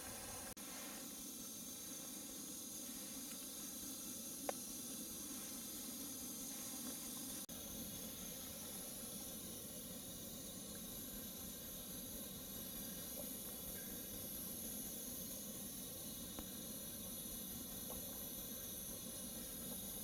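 MSR gasoline cooker burning with a steady, even hiss, with a single faint tick about four and a half seconds in.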